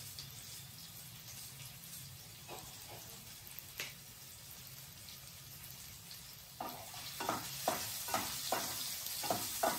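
Gooseberry pieces and mustard seeds frying in gingelly oil in a pan: a faint steady sizzle. About two-thirds of the way in, a wooden spatula starts stirring them, with quick scraping strokes against the pan and a louder sizzle.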